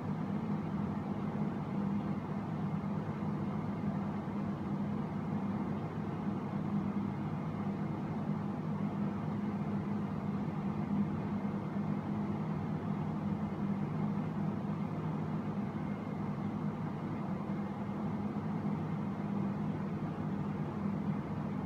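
Steady mechanical hum of a motorized rotating display turntable, even and unbroken throughout.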